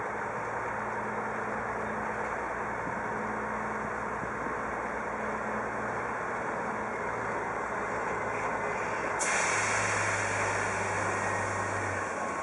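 FS D245 diesel shunting locomotive running steadily as it moves slowly along the yard tracks, hauling two electric locomotives. About nine seconds in, a sudden loud hiss starts and holds.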